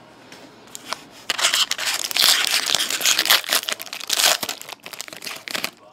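Foil wrapper of a Panini Select hockey card pack being torn open and crinkled by hand: a dense run of crackling that starts about a second in and stops abruptly just before the end. A few light clicks come before it.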